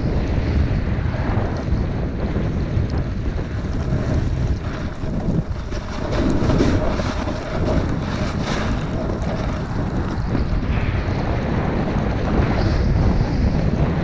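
Wind noise buffeting the microphone of a camera carried fast down a groomed ski run: a loud, steady low rumble with the rushing hiss of sliding over snow.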